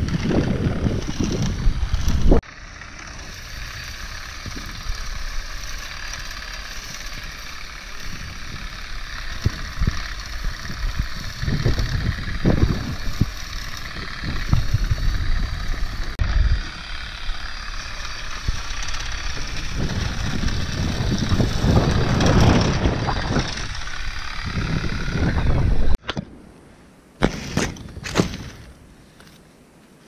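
Electric olive shaker running on its pole: a steady motor whine that wavers in pitch, under bursts of low rumble. Near the end it cuts off suddenly to a quieter stretch with a few short clicks.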